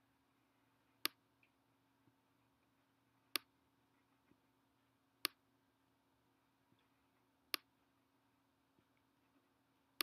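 Near silence broken by four sharp clicks about two seconds apart and a fifth at the very end, made by the pen or mouse input used to hand-write on a computer screen, over a faint steady hum.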